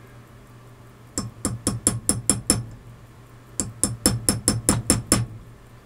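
Small hammer tapping a steel stake in a watchmaker's staking set: two runs of quick, light taps, about six a second, the second run a little longer. The taps drive a balance wheel down flush onto a newly made balance staff.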